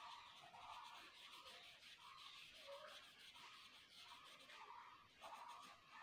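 Colored pencil shading on paper, a faint, irregular scratching of short strokes.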